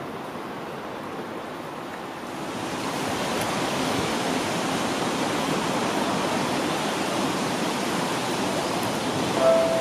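Steady hiss of rain falling, growing louder about two seconds in and then holding even.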